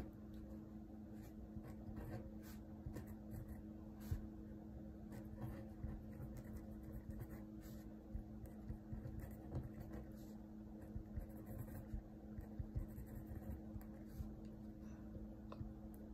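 Faint scratching and light taps from hands working at a tabletop, over a steady low hum.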